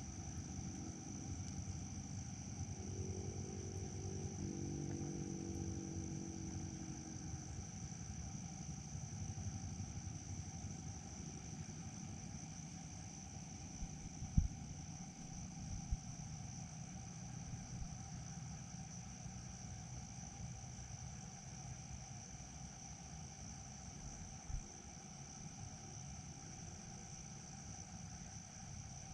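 Insects chirring in a steady, unbroken chorus over a low background rumble. A faint droning tone sounds for the first several seconds, and a few soft knocks come near the middle.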